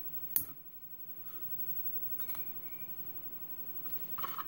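Small metal clicks from handling a brass Ilco lock cylinder with a shim in it: one sharp click about half a second in, then a few faint ticks, with more handling noise near the end.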